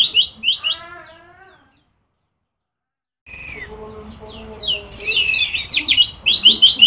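White-eye singing a fast, rapid-fire run of repeated high chirps, which fades out about a second in and breaks off into dead silence. After about a second and a half the song resumes with varied whistles and calls, and the fast repeated chirping returns near the end.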